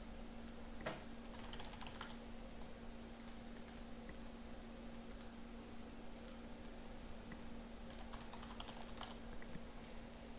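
Faint, scattered clicks of a computer keyboard and mouse in small clusters, over a steady low hum.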